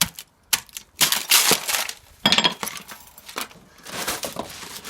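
Scrap wire windings being handled and sorted into copper and aluminium: sharp metallic clinks, then bursts of clattering and rustling as the loose wire is moved.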